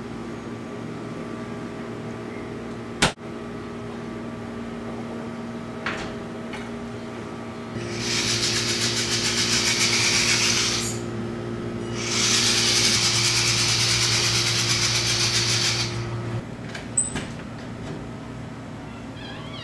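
Vaterra Slickrock RC rock crawler's electric motor and geared drivetrain running as it drives across a tile floor, in two runs of about three and four seconds starting roughly halfway in. Before that, a steady low hum and a single sharp click.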